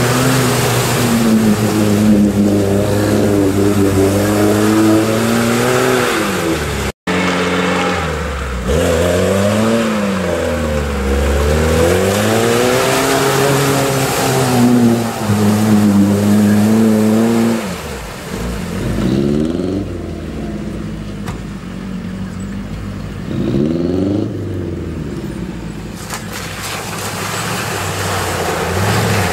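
Off-road 4x4 engines revving up and down hard as the vehicles plough through deep water and mud, with water splashing: first a Lada Niva, then a Land Rover Discovery near the end. The sound cuts out for an instant about seven seconds in.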